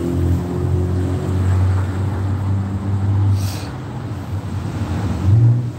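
A motor vehicle's engine running close by, a steady low rumble, with a brief hiss about three and a half seconds in.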